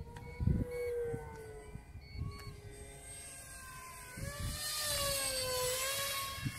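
Radio-controlled A-4 Skyhawk model jet flying overhead, its motor whine sliding up and down in pitch. About four seconds in it grows louder and higher with a rushing hiss as the plane passes close, then drops away. Low wind thumps buffet the microphone.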